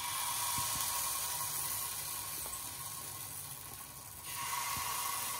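Chocolate batter, mixed with baking soda, sizzling as spoonfuls are poured into the hot cavities of a nonstick appam pan; the hiss swells again about four seconds in as a second spoonful goes in.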